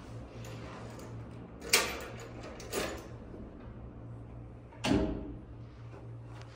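Three sharp clunks at uneven intervals, the last one loudest and deepest, over a steady low hum in a small room.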